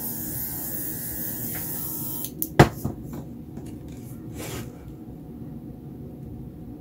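Airbrush blowing a steady hiss of air to push thick wet acrylic paint across paper, cutting off about two seconds in. A sharp knock follows, then a few lighter clicks and a brief rustle.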